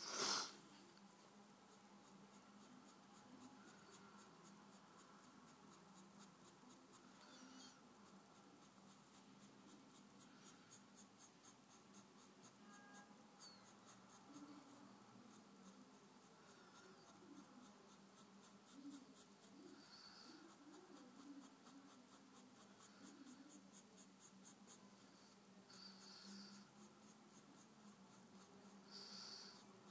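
Faint scratching of a pencil on paper as a hand draws and shades, in short irregular strokes. A short, loud knock comes right at the start.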